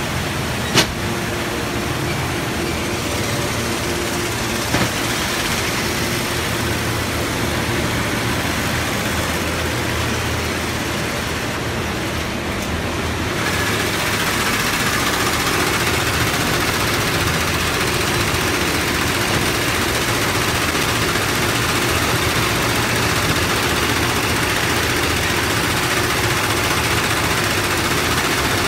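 Industrial sewing machinery, automatic FIBC big-bag loop-attaching sewing machines, running steadily with a low motor hum. There is one sharp click about a second in. Halfway through, the sound grows louder and brighter.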